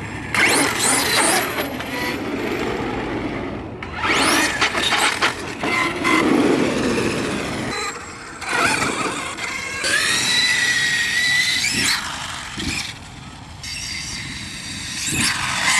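Arrma Kraton 8S EXB electric RC monster truck, with a Hobbywing Max5 ESC and 1100 kV brushless motor on 4S, driven in repeated bursts of throttle. The motor whine rises in pitch with each of about four accelerations.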